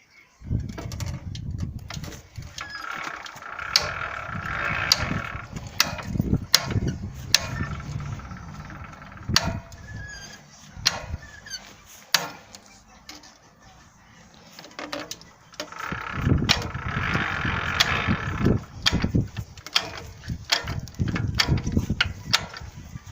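Homemade ratchet wheel unlockers on a walk-behind tractor clicking as the wheels turn. Sharp clicks come at irregular intervals throughout, with two longer stretches of low rumble, one near the start and one in the second half.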